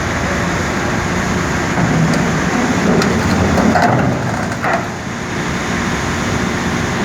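Steady low rumble of a boat's engine running, growing a little louder in the middle, with a brief faint higher sound twice near the middle.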